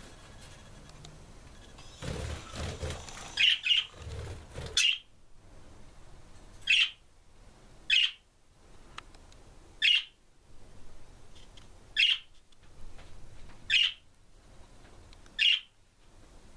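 A budgerigar giving short, sharp, loud contact calls about every two seconds, nine in all, calling out to the other budgies. A few seconds of rustling, fluttering noise come under the first calls.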